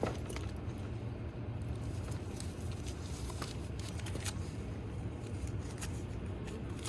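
Microwave oven running with a steady low hum, with faint scattered rustles and ticks of newspaper being handled.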